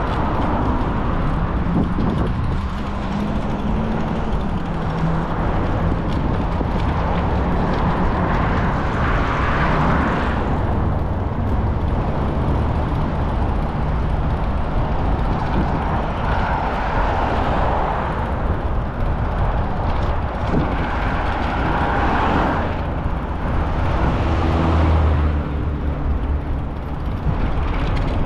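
Steady rumbling noise of a bike ride, heaviest in the low end, swelling and easing every few seconds: wind buffeting the camera microphone as the bike moves.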